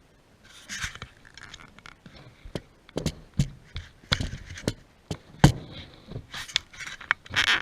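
Hand tools and small engine parts clicking, knocking and scraping during reassembly of a Kubota D722 diesel's fuel injection pump. The sharp knocks come in quick succession from a few seconds in, with a brief scrape near the start and another near the end.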